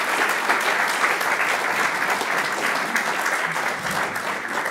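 Audience applauding steadily, a hall full of people clapping.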